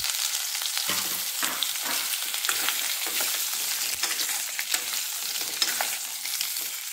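Halved baby potatoes frying in hot mustard oil in a stainless-steel kadhai, a steady sizzle, with a steel ladle scraping and knocking against the pan as it stirs them.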